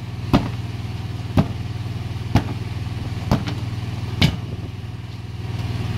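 A long-handled bead-breaker hammer is struck down into the bead of a deflated class 8 truck tire five times, about once a second, to break the bead loose from the rim. A steady low hum runs underneath.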